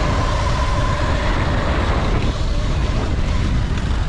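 Wind buffeting the microphone while riding a Sur-Ron electric dirt bike, with the faint whine of its electric motor wavering in pitch and fading out about a second and a half in.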